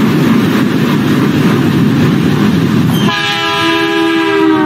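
Diesel locomotive running past with a steady noise of engine and wheels. About three seconds in its horn sounds, a chord of several tones drifting slightly down in pitch and held to the end.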